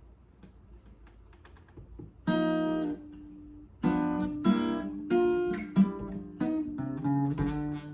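Acoustic guitar introduction: a few faint ticks, then a strummed chord about two seconds in that is held and let fade, followed by steady strummed and picked chords from about four seconds in.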